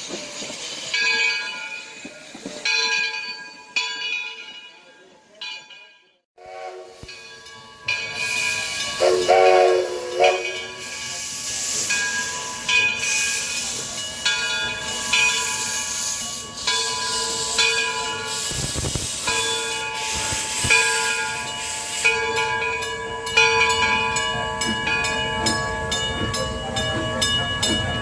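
Steam locomotive starting a train: a short whistle blast about nine seconds in, a loud hiss of steam from about eight seconds on, and regular exhaust beats near the end as it gets moving.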